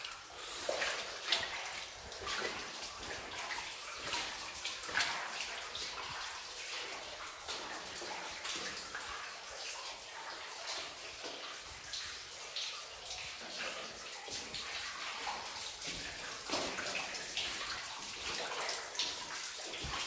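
Footsteps wading through ankle-deep water flowing along a mine tunnel floor: irregular splashes over the steady rush of the running water.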